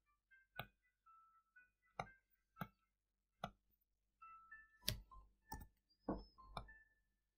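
Faint computer mouse clicks, about eight sharp single clicks at irregular intervals, as shapes are pasted onto slides and the slides are switched.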